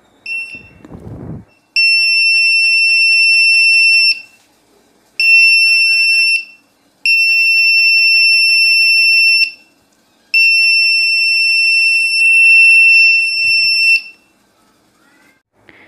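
Metscan hand-held metal detector's alarm sounding a steady high-pitched tone in four long stretches, each one to four seconds long, as it senses a gutka pouch under its search loop; a short beep comes near the start and again near the end.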